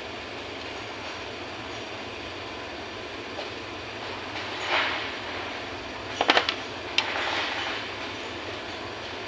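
Small steel engine parts clinking and scraping against the aluminium crankcase of a Modenas Kriss 110 engine as it is taken apart by hand, over a steady background hiss. The loudest part is a quick cluster of sharp metallic clicks a little past the middle, then a single click and about a second of scraping.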